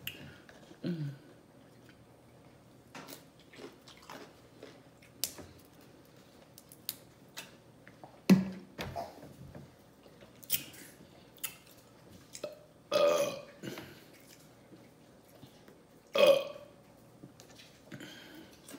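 A woman burping repeatedly after a big meal: a small burp about a second in, then three loud, drawn-out burps about halfway, two-thirds of the way through and later on. Faint clicks and mouth noises fall between them.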